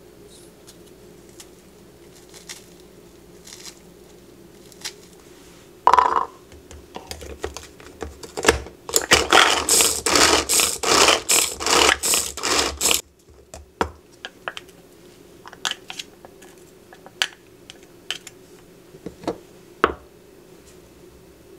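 Hand-pull mini food chopper being pulled again and again, about three pulls a second: a loud, rhythmic whirring rattle lasting several seconds in the middle. Before and after it, lighter clicks and knocks of kitchen handling.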